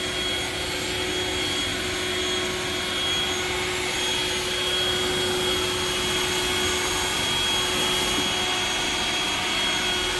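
Echo DPB-5800T 58-volt battery backpack blower running at normal, non-turbo power with the trigger held: a steady rush of air with a constant motor whine.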